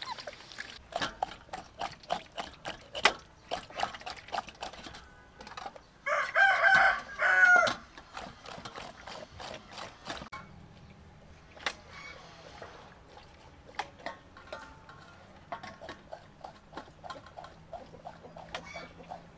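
A rooster crows once, loudly, about six seconds in, the crow lasting about two seconds. Around it comes a run of short wet clicks and scrapes as a raw pig stomach is rubbed by hand and cut with a knife in an aluminium basin.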